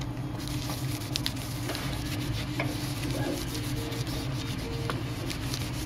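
Microfiber cloth wiping and rubbing the dimpled plastic back cover of a Samsung Galaxy S5, with scattered small clicks of the phone being handled, over a steady low hum.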